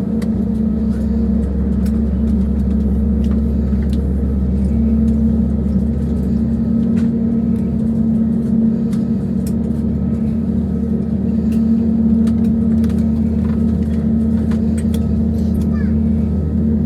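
Steady low drone with a constant hum inside an Airbus A320neo cabin, from its CFM LEAP-1A engines running on the ground during engine start.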